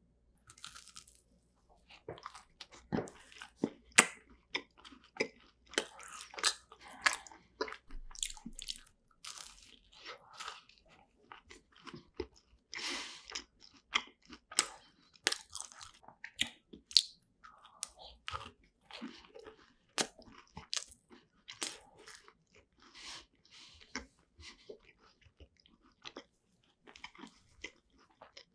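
Close-miked eating of a crisp shell-shaped macaron with cream filling: bites and chewing, heard as a dense, irregular run of short crisp crunches that begins about two seconds in.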